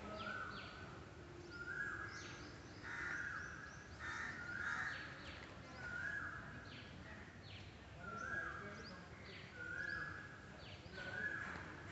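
Crows cawing repeatedly, about one caw a second, over a steady low background noise.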